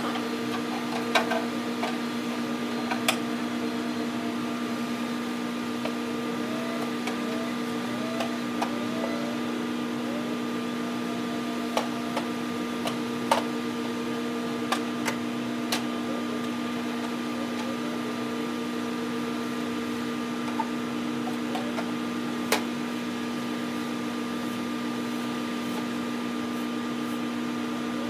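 A steady mechanical hum with no change in pitch, broken by a dozen or so light clicks and taps from a broom and a long-handled dustpan being handled on concrete.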